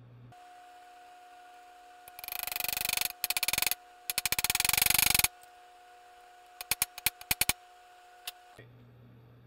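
Hammer driving a steel pin through a punch into a garden-tractor transmission case: two quick flurries of rapid metallic taps, then about eight separate taps and one last tap as the pin is set flush with the case.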